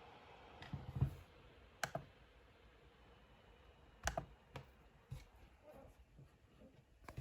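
Faint steady hiss, which the uploader presents as an S740 laptop's cooling fan still running while the machine is asleep, broken by about six scattered sharp clicks and light knocks.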